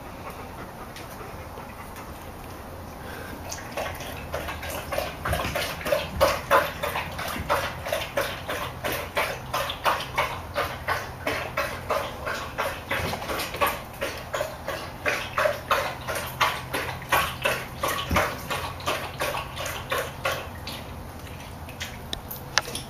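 Dog barking over and over in a quick run, about two or three barks a second, starting a few seconds in and stopping shortly before the end.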